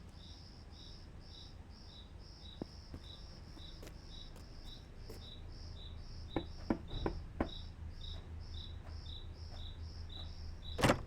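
Cricket chirping ambience, an even high chirp about three times a second over a low steady hum. About halfway through come four quick sharp taps, and a louder sharp sound near the end.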